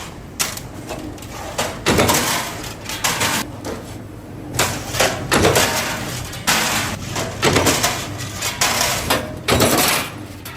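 Irregular clanks and knocks of hard metal pieces being handled and struck, about a dozen impacts of varying loudness in quick, uneven succession.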